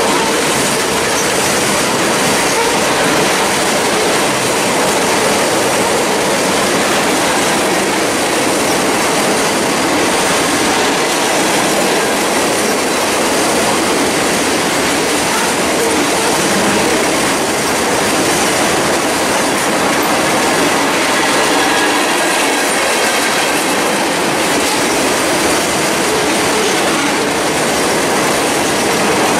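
Freight train cars rolling past at speed: a steady, loud din of steel wheels on rail.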